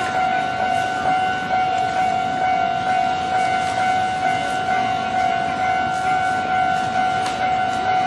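Electronic warning bell of a Japanese railway level crossing ringing, a steadily repeating clang on one pitch.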